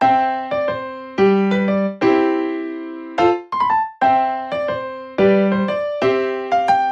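Background music: a bright electric-piano melody of struck notes that ring out and fade.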